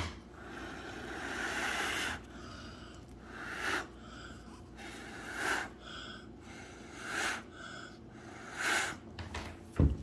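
A person blowing by mouth on wet poured acrylic paint to spread it outward: one long blow, then four short puffs about every second and a half to two seconds. Two short knocks near the end.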